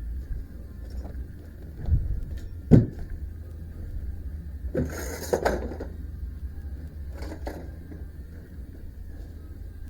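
Hands-on work on a band sawmill during a band change: a sharp knock about three seconds in, then two short bouts of scraping and rustling, over a steady low rumble.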